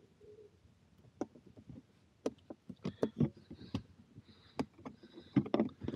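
Irregular clicks and knocks of a water hose nozzle and plastic filler fittings being handled and pushed into a motorhome's water filler.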